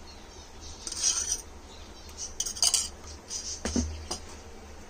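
A steel spoon clinking and scraping against a steel oil jar as oil is spooned out. There are a few short scrapes, then a sharp tap near the end.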